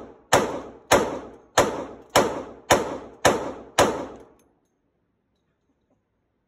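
Glock 29 10mm pistol firing seven shots in steady succession, a little under two a second, each shot echoing in an indoor range lane. The firing stops about four seconds in as the magazine runs empty and the slide locks back.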